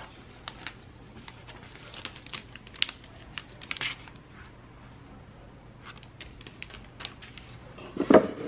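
Crinkling and rustling of a small clear plastic sleeve as a sticker is slid into it and handled on a desk, with scattered light clicks and taps. It gets louder just before the end.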